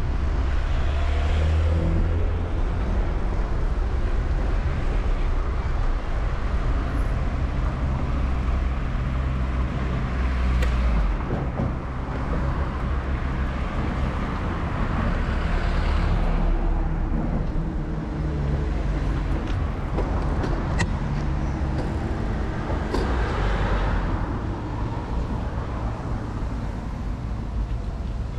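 City road traffic heard from a bicycle: a continuous low motor-vehicle engine rumble, with several vehicles swelling past close by.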